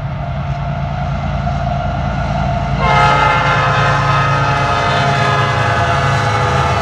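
Diesel freight locomotives rumbling low as the train approaches; about three seconds in, the lead locomotive's air horn starts a chord and holds it steadily.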